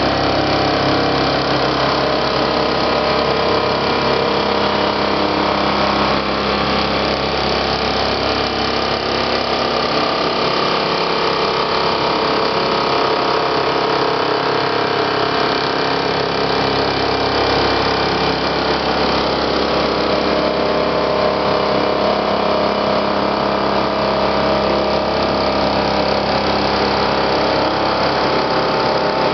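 Bergonzi Synthesis portal milling machine with its spindle running and the end mill cutting a metal disc: steady machining noise with several held tones.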